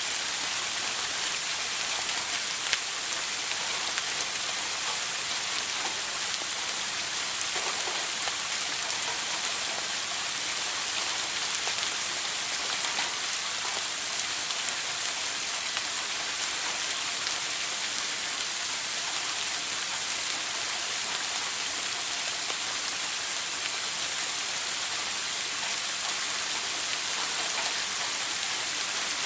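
Shower spray running steadily: an even hiss of falling water, strongest in its high, bright range.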